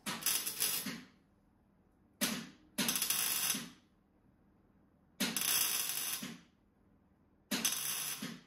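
Electric arc welding on car-body sheet steel in five short bursts, each under about a second, crackling with the arc, as old holes in the engine bay are welded shut.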